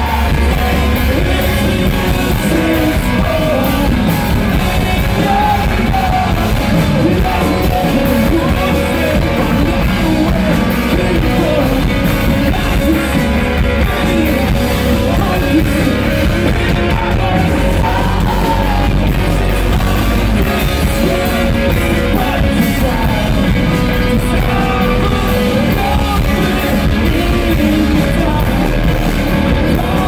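Live rock band playing: electric guitars, bass and drums, with a singer's vocals, some of them shouted, heard from within the crowd. The music is loud and continuous.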